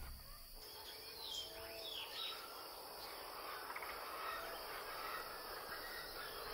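Faint desert ambience: a steady high-pitched insect chorus with a few short bird chirps scattered through, some sliding down in pitch.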